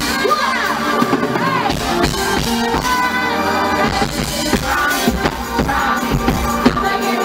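Live hip-hop song at a concert: a steady bass beat and keyboards with a woman singing into a handheld microphone.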